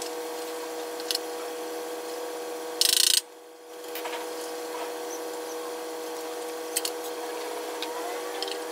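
Tool work on a power-tool repair bench: a few light clicks and taps over a steady hum, with one short, loud hiss about three seconds in, after which the level briefly drops.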